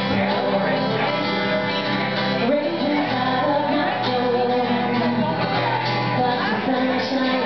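A woman singing a song while strumming an acoustic guitar, played live.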